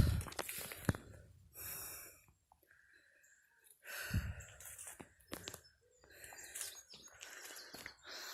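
A hiker breathing hard in irregular, noisy breaths while climbing a steep trail, with a quiet pause in the middle.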